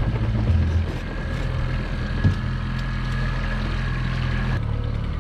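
Outboard motor running steadily at trolling speed, a low even hum with a hiss over it. A single knock comes about two seconds in, and the hiss drops away a little before the end while the motor keeps running.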